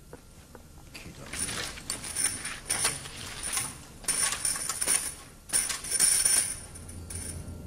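Metal rattling and clinking in several irregular bursts, the loudest near the end.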